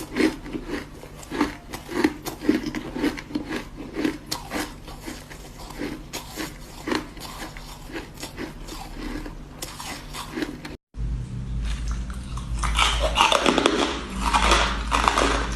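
Ice being bitten and crunched between the teeth close to the microphone, in repeated bites. About 11 s in the sound cuts out briefly, and louder, denser crunching follows over a steady low hum.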